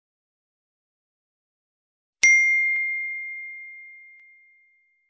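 A single notification-bell ding sound effect, struck about two seconds in and ringing out as one clear tone that fades away over about two and a half seconds. A faint tick comes just after the strike.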